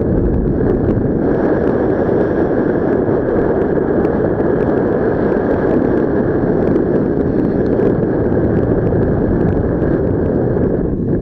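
Wind rushing over an action camera's microphone in paraglider flight: a loud, steady rumbling buffet of airflow.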